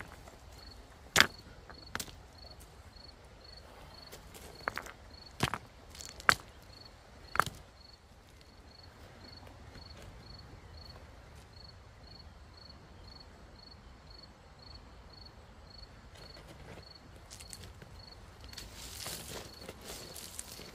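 River stones knocking together: about seven sharp clacks in the first seven or eight seconds, as stones are set around the foot of a wooden pole. Then a faint insect chirping about twice a second, with crunching gravel and rustling near the end.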